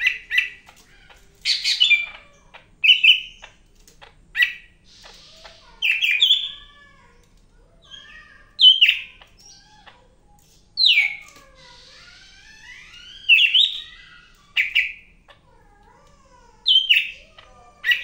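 Golden-fronted leafbird singing vigorously: a run of loud, sharp chirps about every one to two seconds, with softer gliding, warbling notes in between.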